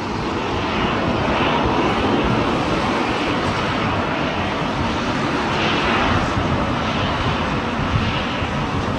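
Boeing 737-800's CFM56 jet engines running as the airliner rolls along the runway: a steady, loud rushing roar.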